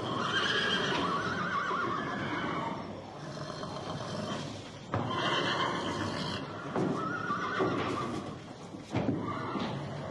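A horse whinnying several times: one long, quavering call, then three shorter ones in quick succession.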